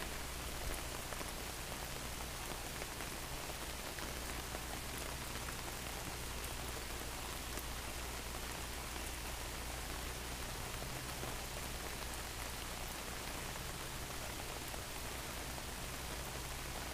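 Steady rain falling in a thunderstorm.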